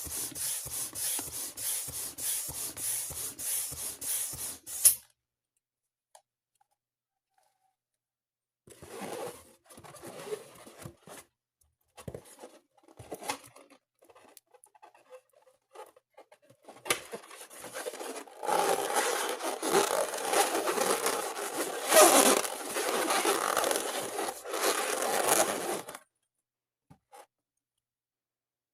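Rubber balloons being handled, rubbing and scraping in bursts. One sharp, loud snap comes about five seconds in, followed by several seconds of silence.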